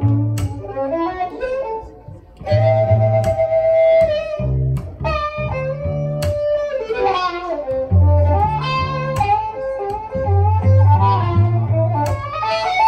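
Instrumental break of a folk tune on electric violin and cello: the fiddle plays a melody with sliding notes over a rhythmic cello bass line.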